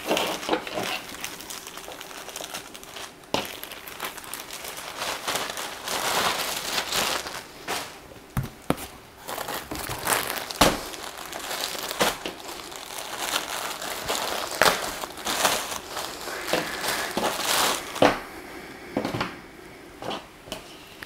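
Packaging crinkling and rustling as the next swimsuit is pulled out and handled, in irregular bursts with a few sharp snaps.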